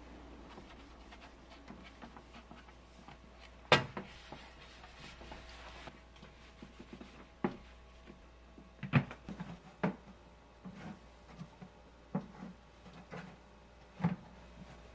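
Household bread maker being wiped down with a cloth: soft rubbing with a few sharp knocks and clicks from its lid and body being handled. The loudest click comes about four seconds in, and softer knocks follow every second or two.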